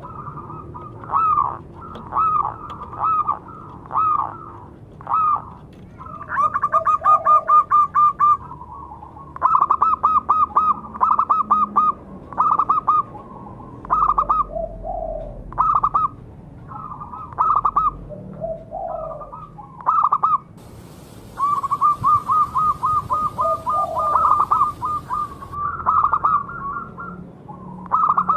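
Zebra dove (perkutut) singing: a series of short, clipped cooing notes broken by fast runs of rapid notes, with a few lower notes in between.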